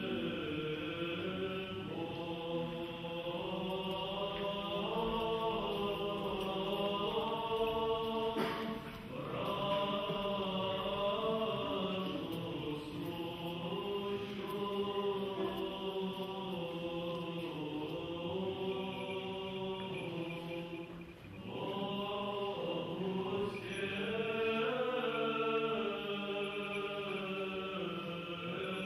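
Choir singing Orthodox liturgical chant in several-part harmony: long held chords that move slowly, with two brief breaks between phrases, about nine and twenty-one seconds in.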